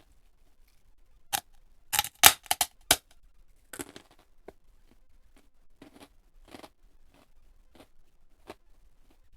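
Close-miked crunching of crisp food being bitten and chewed: a loud run of sharp crunches from about a second in to three seconds, then softer, scattered chewing crunches.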